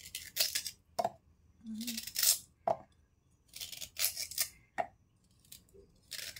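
Kitchen knife slicing through fresh galangal held in the hand, each cut a short crunchy rasp, with slices dropping into a plastic blender jar with light clicks, several times over.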